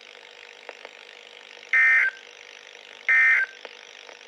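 Two short bursts of EAS end-of-message data tones, the SAME digital code that closes an emergency alert broadcast. Each burst lasts about a third of a second, and they come about 1.3 s apart over a faint steady hiss.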